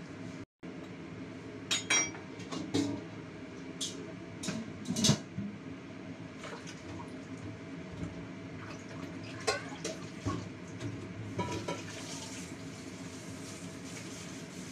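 Scattered clinks and clatters of dishes and metal kitchenware being handled, the loudest about five seconds in, over a steady hum, with a short spell of running water near the end.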